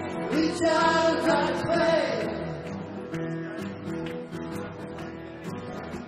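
Live acoustic guitar strumming, with a voice singing a bending, wavering line during the first two seconds.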